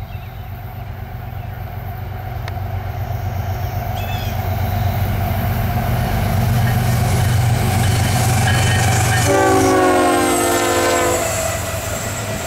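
CSX diesel locomotive approaching, its engine rumble growing steadily louder, then one multi-chime air horn blast of about two seconds near the end.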